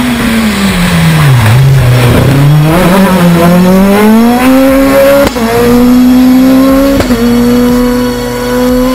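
Rally car engine on a stage: the revs fall in the first second or so, then climb steadily as it accelerates, with quick gear changes about five and seven seconds in.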